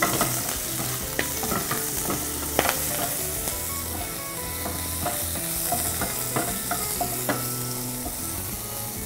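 Scallion segments sizzling in hot oil in a nonstick frying pan as a wooden spatula stirs and scrapes them, with a few sharper knocks of the spatula against the pan. The scallions are being stir-fried until fragrant.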